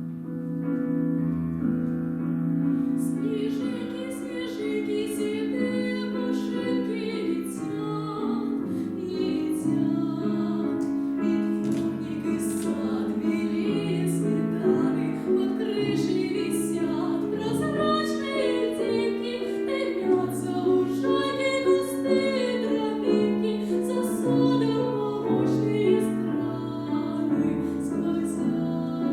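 Classical piano music, starting suddenly out of silence and playing on steadily.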